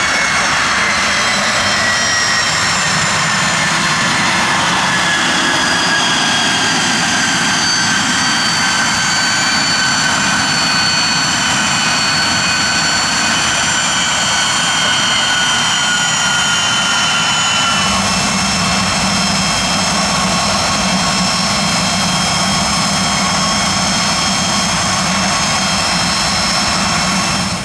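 Twin Williams FJ44-4A turbofans of a Pilatus PC-24 business jet running at taxi power as the jet taxis past. A steady rushing jet noise is overlaid with high whining tones that drift slowly in pitch, and the tone shifts about two-thirds of the way through.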